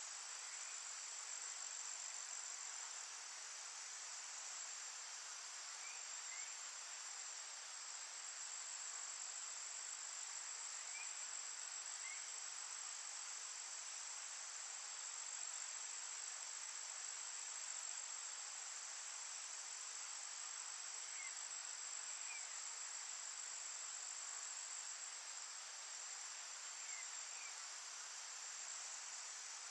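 A steady, high-pitched chorus of insects in a forest, unbroken throughout. Faint short rising chirps come in pairs every five seconds or so.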